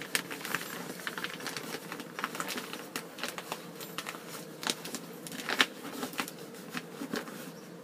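Nonwoven fabric and a plastic lining rustling and crinkling as a sewn cover is turned right side out by hand, with irregular soft crackles and a couple of louder crinkles just past the middle.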